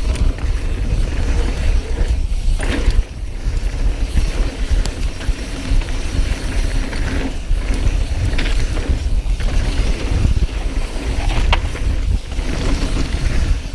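Mountain bike riding down a dirt trail: loud wind buffeting on the microphone over tyre rolling noise, with scattered clatters of the bike over bumps.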